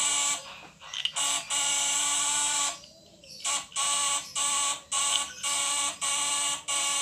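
Homemade 12-volt fish-stunner inverter with a vibrating contact-breaker (platina) buzzing under a 1000-watt bulb load. The buzz comes in repeated pulses of about half a second to a second with short breaks, and stops for about half a second around the middle.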